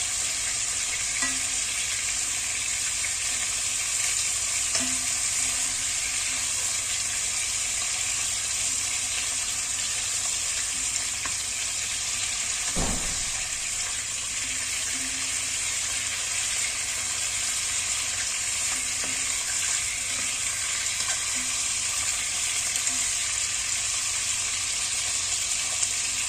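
Chicken browning in oil in an enamelled cast-iron pot, a steady sizzle as it is stirred with a wooden spoon. A single knock about halfway through.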